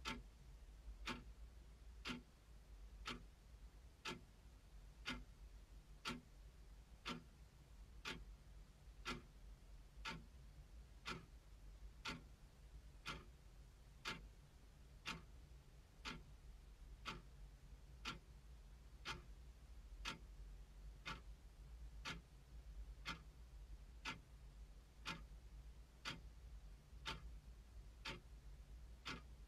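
Clock ticking steadily, about once a second.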